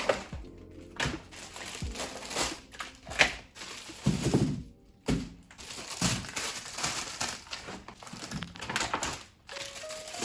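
Irregular rustling and crinkling, as of packaging or bags being handled, with a few knocks.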